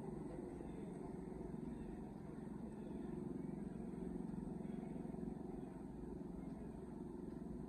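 Steady low rumble, like a motor running at a distance, with no distinct calls or knocks.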